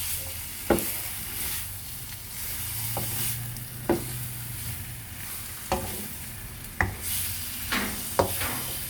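Chicken pieces frying in oil with onion and ginger-garlic paste, sizzling steadily, while a spoon stirs them and knocks against the pan about six times.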